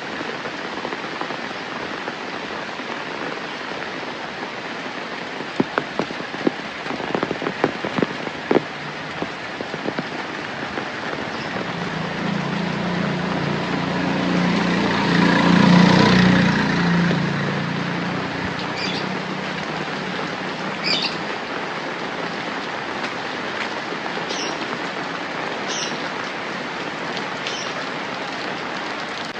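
Steady rain falling, with a few sharp drip taps around six to eight seconds in. Near the middle an engine passes, swelling to a peak and fading away. Short high bird chirps follow in the later part.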